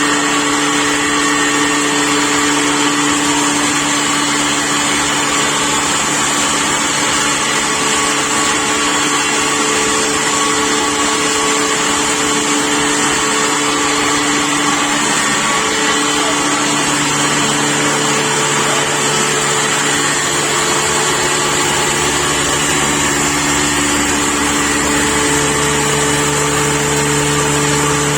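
12-inch double-stage blower-type pulveriser, driven by a 10 hp motor, running steadily with a loud, even hum and whir. Its low hum grows stronger about two-thirds of the way through.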